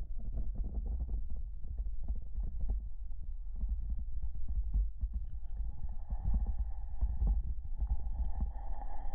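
Irregular low knocks and thumps, typical of wading boots stepping over a stony creek bed. From about six seconds in, a faint steady high tone joins them.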